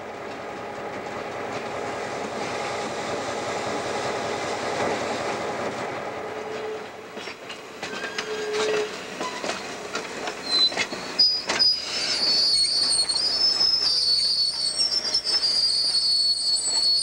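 Diesel locomotive running as the train rolls slowly, then passenger coaches rolling past with wheels clicking over the rail joints. In the second half, a loud high-pitched squeal from the wheels sets in and holds.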